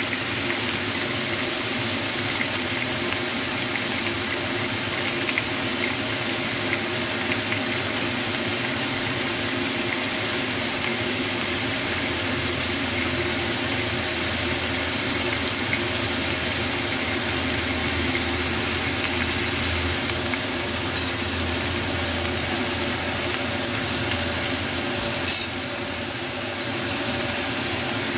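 Beef pieces sizzling steadily as they sear in oil in a frying pan, over a steady mechanical hum. A single brief click near the end, after which the sizzle is slightly quieter.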